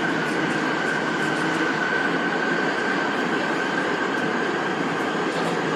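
Sendai Subway Tozai Line linear-motor train running through the tunnel, heard from inside the car as a steady rumble. A thin high squeal or whine rides over it, strongest about two seconds in and fading near the end.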